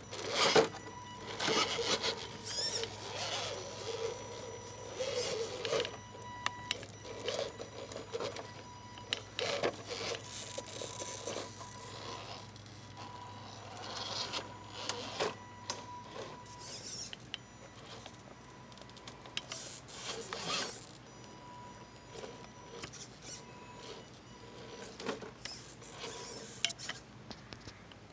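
Scale RC rock crawler's electric motor and gear drive whining in short, irregular bursts of throttle as it climbs over rocks, with scrapes and knocks of tyres and chassis on stone.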